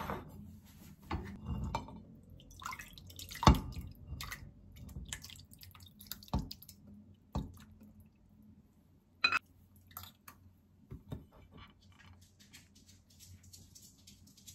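Egg soup poured and dripping from a small pot into a ceramic bowl, with several sharp clinks and knocks of dishes and the pot against a stone countertop, the loudest about three and a half seconds in.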